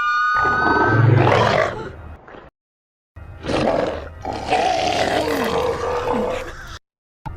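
Demon wendigo monster sound effects: a roar that fades out over about two seconds, a short silence, then a longer growling roar lasting about three and a half seconds that cuts off suddenly.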